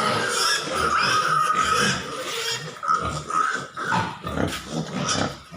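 Pigs squealing: one long squeal for about the first two seconds, then shorter squeals and grunts.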